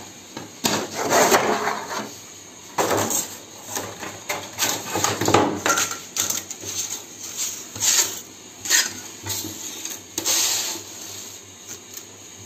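Small cut pieces of 0.8 mm sunmica laminate being handled, knocking and scraping against one another in irregular light clicks, taps and short scrapes.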